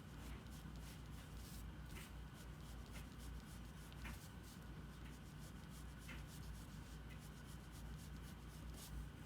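Faint scratching of a drawing tool on paper, many short irregular strokes, over a low steady hum.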